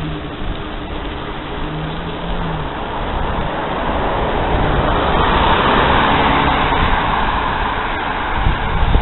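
A car overtaking from behind: its tyre and engine noise swells to a peak about five to six seconds in, then fades as it pulls away ahead. Under it runs a steady low rumble of wind and road on a bicycle-mounted microphone, with a couple of jolts near the end.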